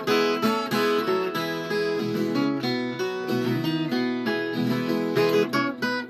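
Viola caipira, the Brazilian ten-string folk guitar, played solo: a quick picked melody, note after note without a break.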